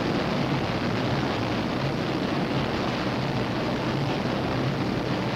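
Boeing 377 Stratocruiser's four Pratt & Whitney R-4360 Wasp Major radial piston engines running steadily on the ground, warming up just after being started: an even drone with a broad hiss.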